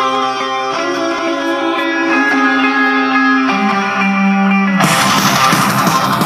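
Guitar rock music played through a Technics SB-C80 loudspeaker for a speaker test: held guitar notes changing every second or so, then about five seconds in the music suddenly turns dense and heavy.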